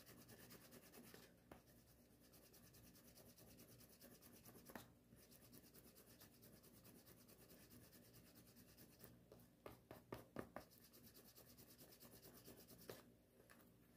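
Faint, quick rubbing of a wooden edge slicker burnishing the painted edge of a leather card holder, with the dried first coat of edge paint being smoothed. A few soft clicks about two-thirds of the way through.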